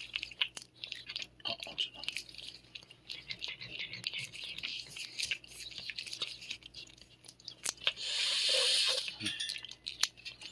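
Cat licking a paste treat from a squeezed tube: a quick, irregular run of small wet licking clicks. Near the end a loud breathy rush of noise lasts about a second.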